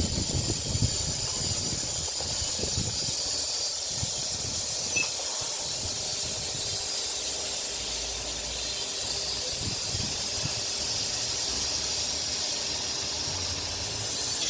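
CNC router's X and Y axes travelling back to their home position, the drive motors humming low under a steady hiss.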